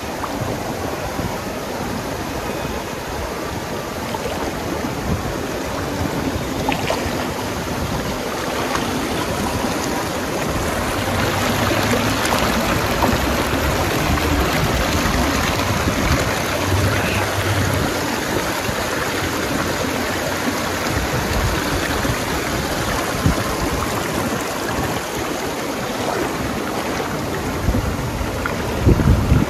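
Steady rushing water, like a stream, with a couple of low thumps near the end.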